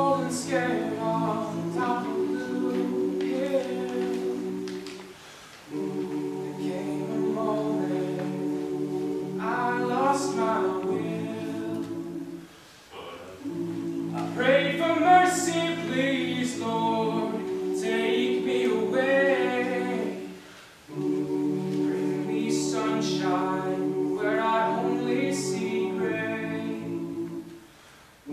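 Mixed a cappella group singing live in close harmony: held chords in phrases of several seconds with short breaks between them, higher voices moving above the sustained lower parts.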